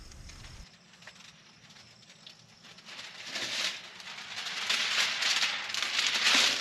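Thin plastic window-tint film crinkling and crackling as it is handled, getting louder and denser over the last few seconds.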